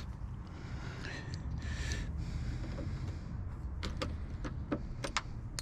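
A few short, sharp clicks of small metal parts and a screwdriver being handled at the car door, bunched near the end, over a steady low rumble.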